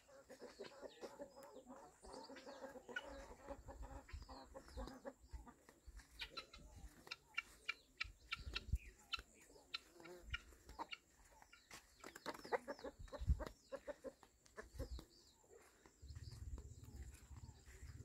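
Farmyard chickens clucking and calling, with a longer drawn-out call over the first few seconds and many short clucks and chirps after it; a low rumble comes in near the end.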